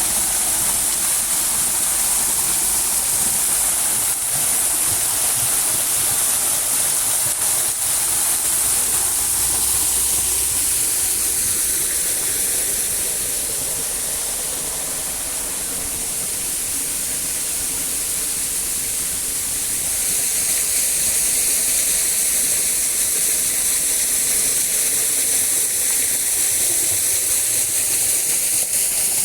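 Steady rush of falling water, a continuous hiss with no rhythm, easing slightly in the middle of the stretch and then coming back.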